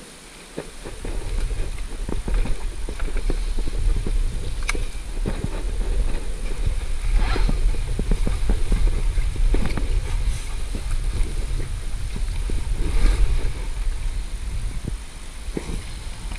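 Wind buffeting the microphone as a heavy low rumble, with irregular knocks and clatter on top. It starts about a second in and eases off near the end.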